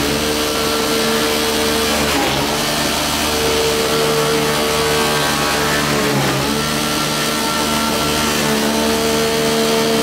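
Motor-driven corn crusher running loudly and steadily, its pitch sagging briefly about two seconds in and again about six seconds in as it takes load.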